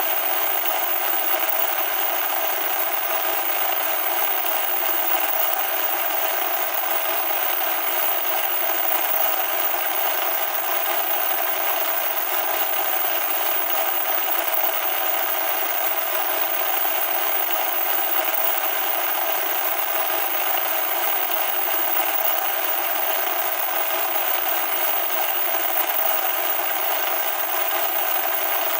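Loud, steady electronic static: an even hiss with no bass and no change in level.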